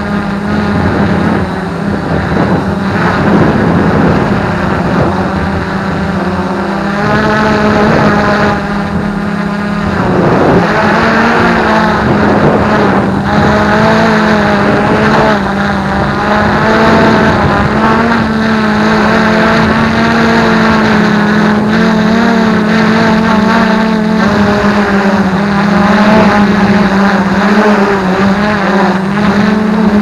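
Brushless motors and propellers of an F450 quadcopter whining steadily, their pitch constantly rising and falling as the flight controller adjusts motor speeds to hold the drone steady in strong wind. Wind buffets the onboard microphone.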